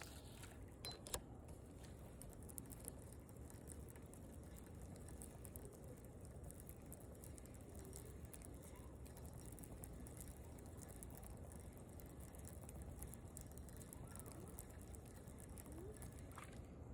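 Near silence: faint outdoor ambience with a steady low rumble, one sharp click about a second in, and a few faint short rising chirps.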